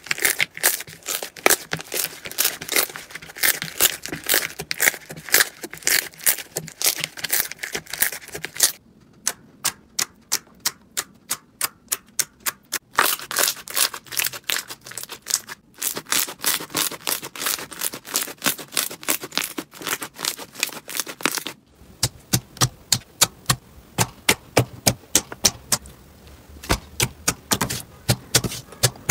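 Hands pressing, poking and squeezing slime, giving rapid crackling and popping clicks, several a second. The sound changes abruptly several times as one slime gives way to another.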